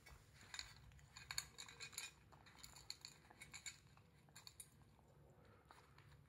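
Light metallic clinks and clicks as a Border Collie puppy's muzzle and the tennis balls knock against a metal muffin tin while it noses out its food. The clinks come in quick flurries through the first few seconds and grow sparse near the end.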